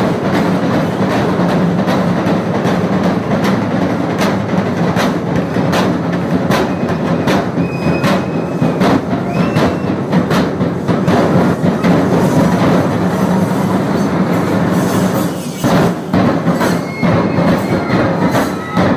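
Large drums beaten in a fast, dense, continuous rhythm for a folk dance, with a few short high held tones over the drumming near the middle and near the end.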